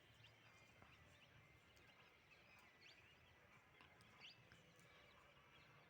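Near silence outdoors, with faint, scattered bird chirps.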